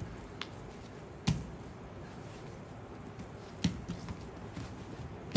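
Grapplers moving on foam grappling mats: bodies, hands and bare feet shifting and landing give a few short soft thumps and scuffs, about a second in, again past the middle, and the sharpest right at the end.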